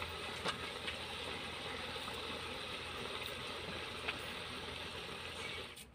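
Chicken pieces in masala sizzling steadily in a cooking pot, with a grainy crackle and a few faint clicks.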